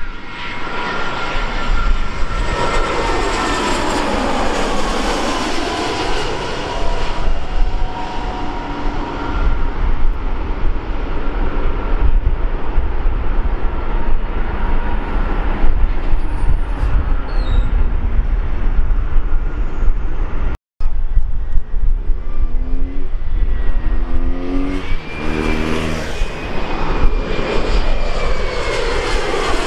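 Jet airliners on final approach passing low overhead. An Airbus A320-family jet's engine whine drops in pitch as it goes by over a continuous low jet rumble. The sound cuts out for a moment a little past two-thirds through, then an Embraer E-Jet regional jet approaches with its engine whine rising in pitch near the end.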